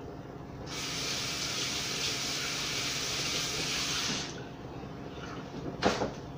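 Kitchen tap running for about three and a half seconds while hands are washed, then turned off. A brief, louder sound follows near the end.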